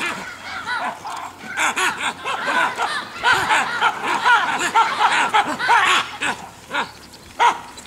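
Baboons giving rapid, repeated shrill screams and lower grunting calls that overlap throughout, the distress and alarm of a troop with a leopard attacking one of its members.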